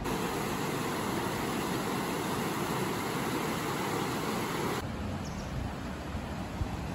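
Shallow mountain river rushing over rocks, an even hiss of running water. About five seconds in it changes abruptly to a quieter, more distant rush.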